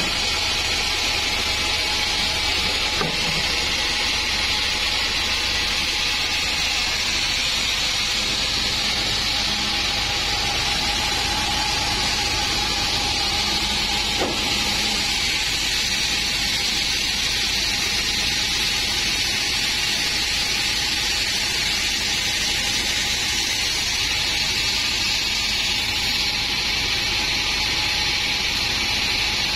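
Sawmill log band saw running steadily, with a continuous high-pitched hiss of the blade. At the start it is sawing a slab off a teak log.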